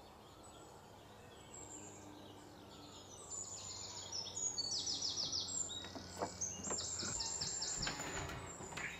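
A songbird singing: several quick runs of high, falling chirps, starting about three seconds in, over faint outdoor background noise.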